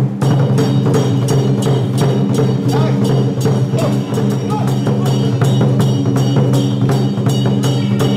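Traditional Taiwanese temple percussion of drum, gongs and cymbals, beaten in a fast steady rhythm over a continuous metallic ringing: the accompaniment of a Song Jiang Zhen martial troupe.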